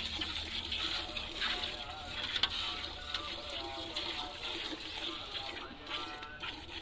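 Hand-milking a cow: jets of milk squirting into a steel bucket.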